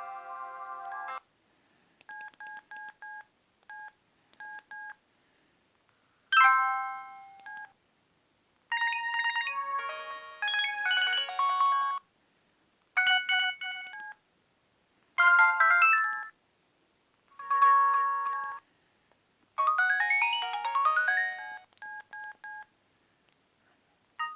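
Sony Ericsson Z600's preloaded ringtones and alert tones played one after another: a series of short electronic melodies, paired beeps and chimes, with brief silences between them. About two-thirds of the way through, one ends in a quick rising run of notes.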